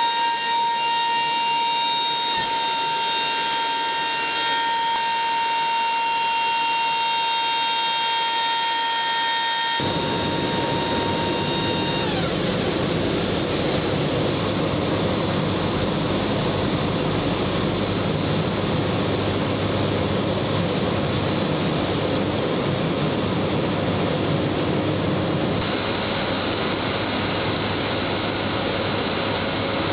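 Military transport aircraft's engines: a steady high whine with several tones, then, about ten seconds in, a sudden change to a loud, dense rumble of engines and rushing air as the aircraft is airborne. The whine glides down a couple of seconds after the change.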